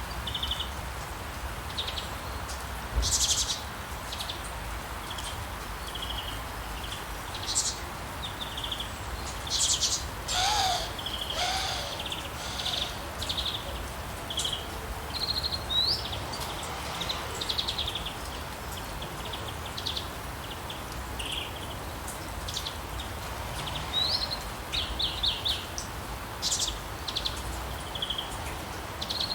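Several birds chirping and singing in short, high calls and trills over a steady hiss of falling rain, with a lower falling call about ten seconds in.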